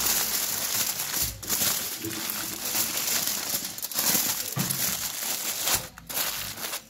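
Aluminium foil crinkling and crumpling as it is folded and pressed around a whole cauliflower, with a brief pause near the end.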